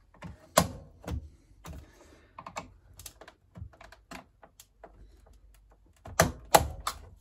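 Plastic snap-fit clips of a Samsung Ecobubble washing machine door cracking and clicking as the outer fascia is prised off the inner door: a run of irregular sharp snaps, one loud crack about half a second in and three loud ones close together near the end.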